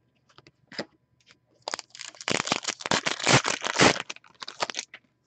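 A foil trading-card pack wrapper being torn open and crinkled in the hands: about three seconds of dense, crackly rustling. It is preceded by a few faint clicks of cards being handled.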